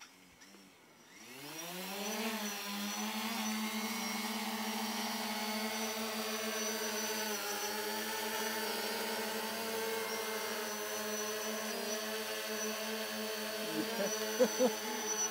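DJI Phantom 3 quadcopter's propeller motors spinning up with a rising whine about a second in, then holding a steady buzzing hover.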